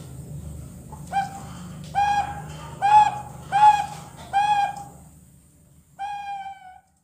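Young perkutut bangkok (zebra dove) cooing: five short notes about a second apart, then a longer drawn-out note near the end. The call is that of a two-month-old juvenile still learning to sing.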